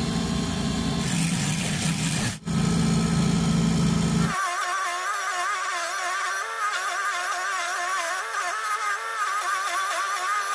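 Small homemade table saw running with a steady motor hum, briefly cut off about two and a half seconds in. From about four seconds in, its circular blade cuts through a PVC sheet, giving a wavering higher whine as the blade is loaded.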